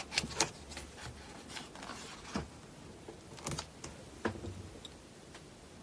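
Pages of a photo book being handled and turned: scattered light paper rustles and soft taps, with a few sharper clicks near the start and around two and a half, three and a half and four seconds in.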